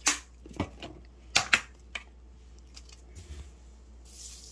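A few sharp clicks and knocks as seasoning containers are handled over a stainless steel mixing bowl, then near the end a soft hiss of granulated sugar pouring from a metal cup onto chopped chives and gochujang.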